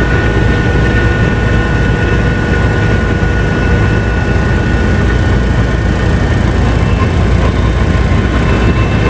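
Helicopter running: loud, steady rotor and engine noise with a thin, steady high whine over it.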